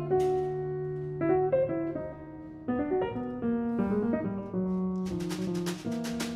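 Grand piano playing a quiet jazz passage of single notes and chords, with a brief lull about two seconds in. Near the end the drum kit comes in with light cymbal taps.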